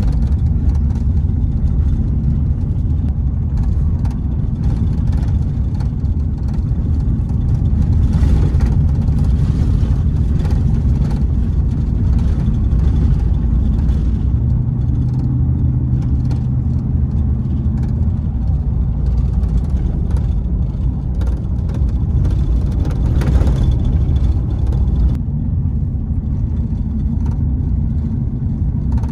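Steady low rumble of a car driving on a dirt road, heard from inside the cabin: tyre and engine noise, with a low hum standing out for a few seconds in the middle.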